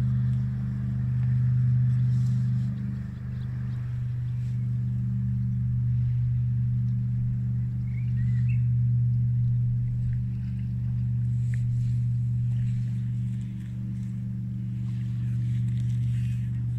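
A steady low hum that holds one pitch and swells and fades slowly, with a short high chirp about eight seconds in.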